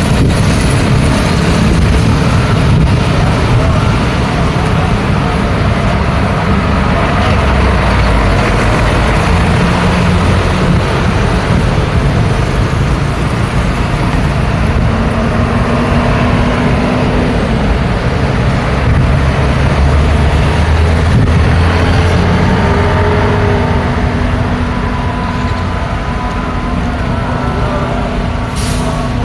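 Busy road traffic: a steady, loud stream of vehicle engines and tyres, with cars, buses and trucks passing close by one after another.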